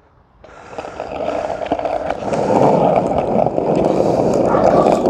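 Skateboard wheels rolling on rough asphalt, starting about half a second in and growing louder over the next two seconds, then holding steady.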